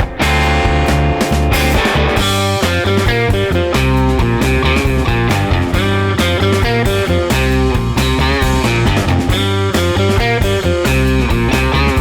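Background music: an upbeat rock track with electric guitar and a steady beat.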